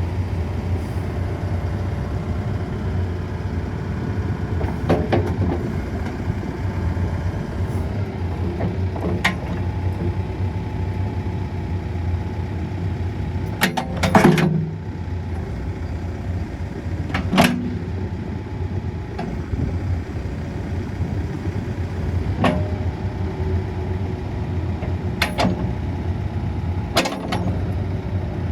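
Case 580SN backhoe's diesel engine running steadily, with a series of sharp knocks every few seconds, the loudest about halfway through.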